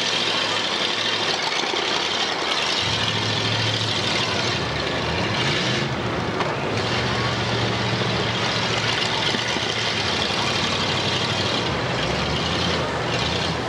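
Demolition derby cars' engines running in the ring, one revving up and back down about halfway through, over a steady dense din.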